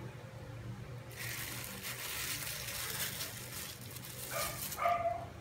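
A plastic-bag-covered hand squishing and scooping minced shrimp paste in a bowl, giving crinkling plastic and wet squelching from about a second in. A brief high whine comes near the end.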